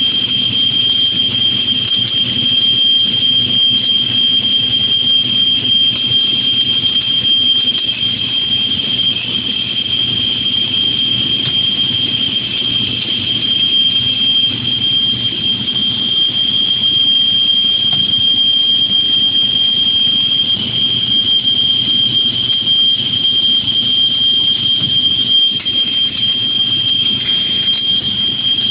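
Automatic street light pole welding machine running: a steady high-pitched whine over a low electrical hum, unbroken throughout.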